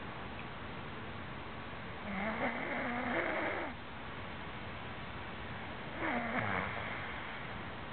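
A man snoring in his sleep: two snores about four seconds apart, the first lasting about a second and a half, the second shorter.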